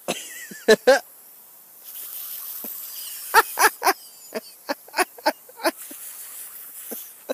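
Hiss of a pop-up lawn sprinkler's water jet, with a dog snapping and biting at the spray: a run of quick sharp clicks from its jaws, thickest about three to six seconds in.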